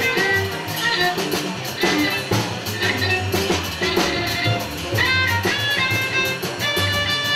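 Live jazz ensemble playing: a bowed viola line over bass and drums, with steady cymbal and drum strokes underneath.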